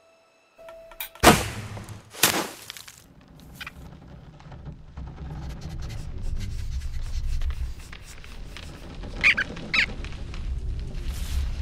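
Animated-film sound effects: a bowstring snaps and an arrow strikes, two sharp thwacks about a second apart, then a low rumble that slowly grows. Near the end, two short high squeaks come from the cartoon rodents.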